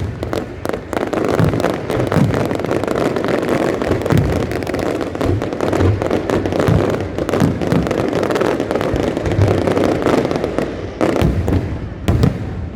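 Fireworks display: a rapid, continuous barrage of sharp bursts and crackling, with deep booms coming every second or so.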